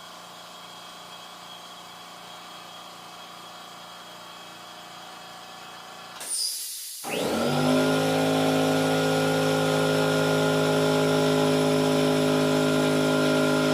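Oil-free twin-piston air compressor (California Air Tools CAT-4620AC-22060, 2.0 hp motor at 1680 RPM) starting up. A faint steady hum comes first. About six seconds in there is a short burst of noise, then the motor comes up to speed within about half a second and runs with a steady, even hum.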